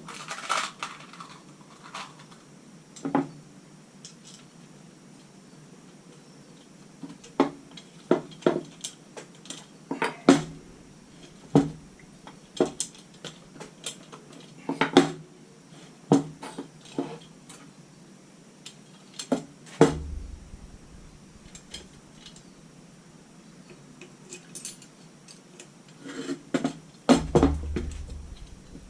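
Steel wheel spokes clinking and rattling against each other and against the hub and rim as they are handled and fitted while a motorcycle wheel is laced, in irregular clusters of sharp metallic clicks. A couple of duller knocks come about two-thirds of the way in and again near the end.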